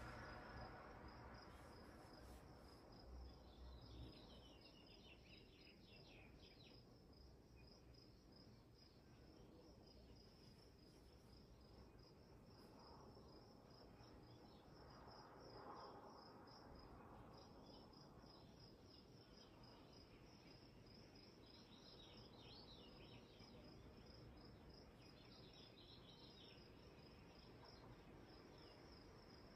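Near silence as a Lakewood P-25 box fan coasts down after being switched off, its blades turning too slowly to make much sound. Underneath, a faint high chirp repeats rapidly and evenly throughout, with a few brief higher twitters.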